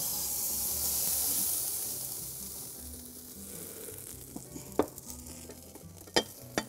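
Hot casserole sizzling in the oven, a hissing that fades over the first three seconds. Then three short, sharp knocks near the end.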